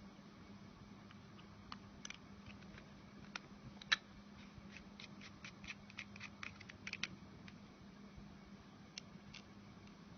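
Faint scattered clicks and taps of a plastic torch's parts being handled and fitted back together, with the sharpest click about four seconds in and a quick run of clicks a little later. A low steady hum sits underneath.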